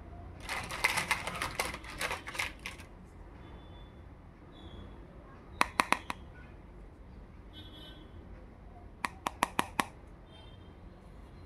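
Small hard plastic toy pieces clattering and clicking as they are handled for a couple of seconds, then three or four quick sharp clicks about six seconds in and a run of five more near the end, from a round plastic toy makeup compact being handled.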